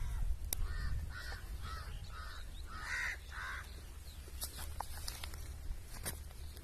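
A crow cawing, a run of about seven short caws about half a second apart in the first few seconds, with a few sharp clicks scattered through.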